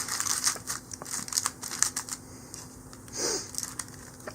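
Aluminum foil being crinkled and folded around a fish fillet, a dense crackle in the first couple of seconds that thins out to scattered crinkles.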